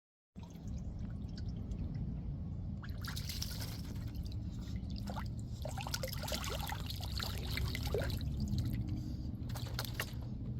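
Water dripping and splashing in scattered drops over a steady low hum.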